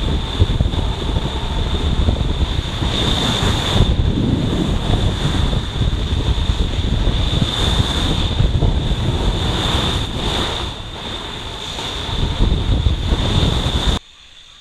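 Wind buffeting a handheld camera's microphone during a descent of a snow slope, a loud gusting rush. It drops abruptly to a low hiss near the end.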